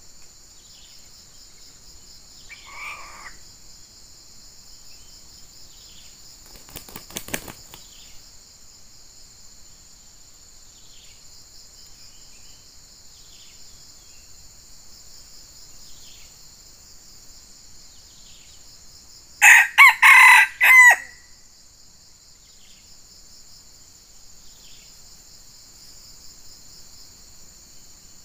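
Red junglefowl rooster crowing once, a loud, short crow of several clipped notes about two-thirds of the way through, over a steady high drone of insects.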